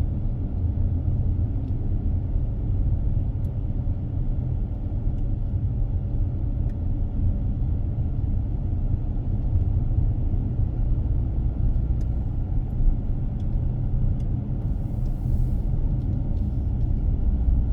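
A car driving on a road, its tyres and engine making a steady low rumble, with a few faint ticks and a brief hiss about fifteen seconds in.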